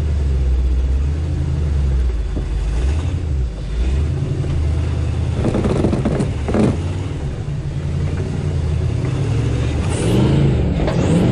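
Off-road vehicle's engine running steadily at low revs, with a couple of brief clunks a little past halfway.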